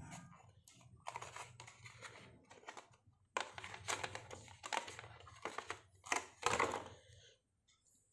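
Plastic crinkling and rustling as neckband earphones and their cable are pulled out of a moulded plastic packing tray, in several irregular bursts that die away near the end.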